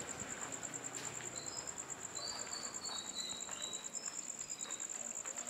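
Night insects chirring: a steady, high, fast-pulsing trill, with a few short chirps about halfway through.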